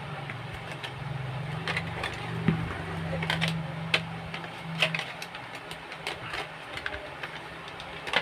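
Irregular clicks and taps of a plastic packaging tray and small lavalier microphone parts being handled and lifted out, over a steady low hum.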